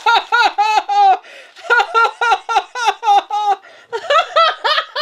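Hearty laughter: quick, high-pitched 'ha' bursts at about four a second, in three runs broken by two short pauses.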